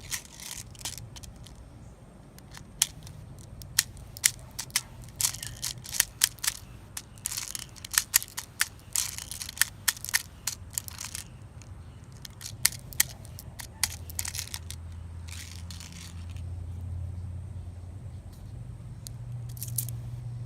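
Airsoft guns clicking and snapping: a run of irregular sharp clicks, thickest through the middle, thinning out with a few more later and a brief hiss about two thirds in.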